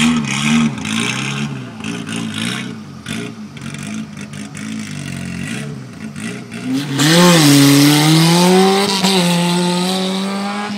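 Modified Suzuki 4x4's engine revving in short blips while held at the start line, then about seven seconds in it launches at full throttle with a sudden loud rush of tyres spinning on dirt, the engine pitch climbing as it accelerates away and slowly fades.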